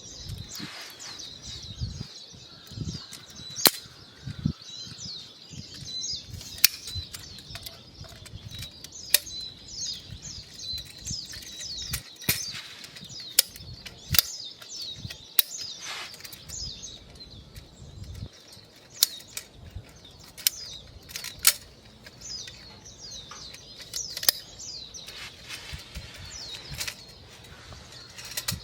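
Small birds chirping over and over in quick falling notes. Sharp clicks and knocks come every second or two, a handful of them louder snaps.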